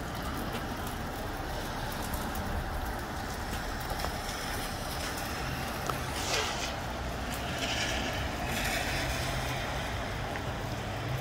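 Steady rain with wind, scattered drop ticks through it. The noise swells briefly just after six seconds and again around eight to nine seconds.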